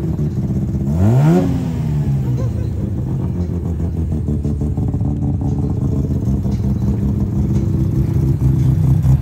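Mazda RX-7's rotary engine blipped once, a quick rising rev about a second in, then idling steadily and growing louder near the end.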